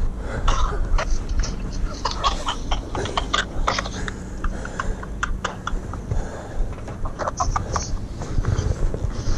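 A man laughing in short, irregular bursts, over a steady low rumble of wind on the microphone.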